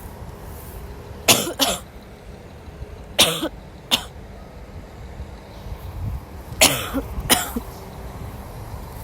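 A sick woman coughing: short, sharp coughs in three pairs, a few seconds apart.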